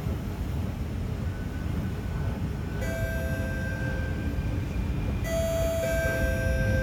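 Alstom C830 metro train at the platform: a steady low rumble, with a steady electrical whine that comes in about three seconds in and returns more strongly near the end.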